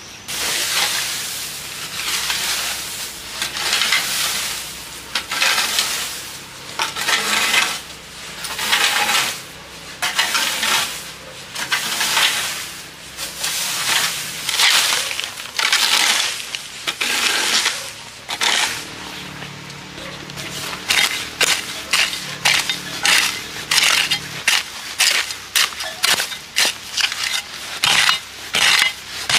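Long scraping strokes through dry straw and grass on bare ground, about one a second. From about two-thirds of the way in, a hoe chops into soil and weeds with quicker, sharper strikes, about two a second.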